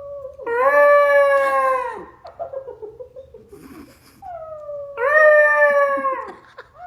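A dog howling in long, drawn-out calls. There are two calls, each sliding down into a held note for about a second and a half, with fainter short whines between them. A third call starts right at the end.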